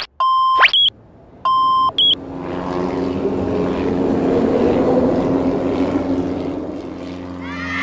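Two short electronic beeps, then a cartoon toy airplane's engine sound effect building up, swelling and steadying over a steady low hum as the plane rolls for take-off.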